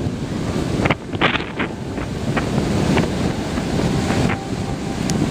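Strong wind buffeting the microphone over the steady wash of ocean surf, with a few short crackles of wind noise about a second in.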